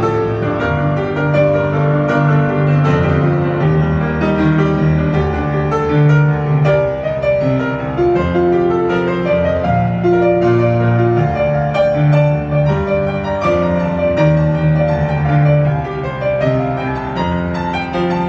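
Instrumental break of a pop ballad with a piano playing chords and melody, held bass notes underneath.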